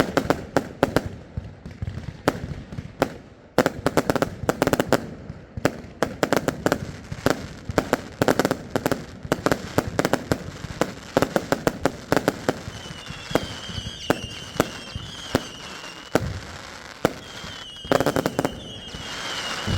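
Fireworks going off in a rapid, irregular string of sharp bangs and crackles. A warbling high whistle joins in over the second half.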